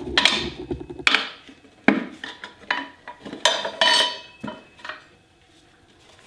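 Metal tire levers clanking and scraping against a motorcycle wheel's rim as the tire bead is levered off. A run of sharp clanks and scrapes that stop about five seconds in.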